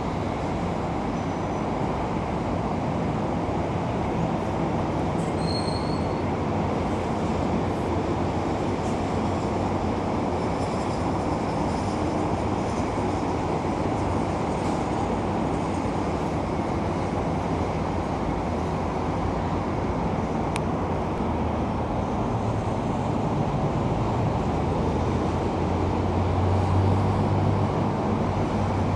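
Steady rumble and rushing noise of a moving vehicle, with a brief high squeal about five seconds in and the low rumble growing louder near the end.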